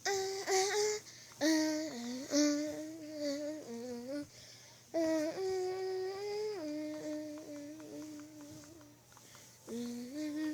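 A voice humming a wordless tune in short phrases of held notes that step up and down, with the same rising phrase coming back near the end.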